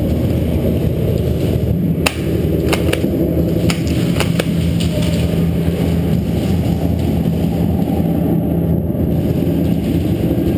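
Steady loud low hum and rumble inside a large warehouse-style indoor airsoft arena. A handful of sharp snaps stand out over it between about two and four and a half seconds in.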